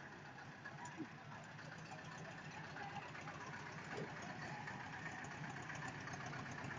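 Engine of a road-going toy train running steadily as it pulls its carriages off on a ride, growing louder as it draws nearer.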